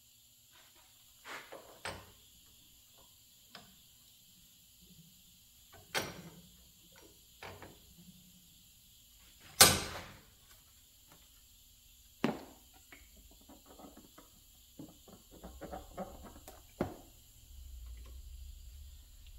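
Scattered knocks and clunks of hand tools and metal parts being handled at a workbench, the loudest about ten seconds in, with a short run of small rattles near the end and a low rumble setting in after it.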